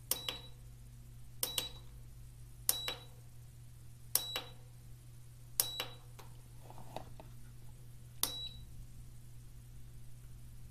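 Mash and Boil electric brewing system's control panel beeping as its buttons are pressed to set the delay-start timer. There are six short, high beeps, each with a click, one to two and a half seconds apart, over a steady low hum.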